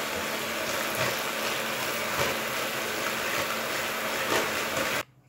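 Handheld electric mixer running steadily, its beaters whisking eggs and powdered sugar in a plastic bowl until the sugar dissolves; it switches off abruptly near the end.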